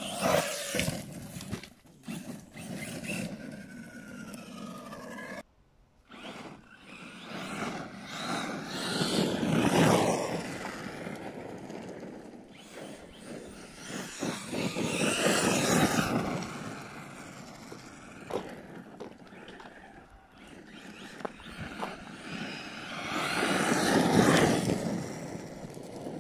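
ARRMA Kraton 6S RC truck's brushless electric motor whining and its tyres scrabbling on loose dirt as it speeds about. The sound swells and fades several times as the truck comes close and pulls away, loudest about ten, fifteen and twenty-four seconds in.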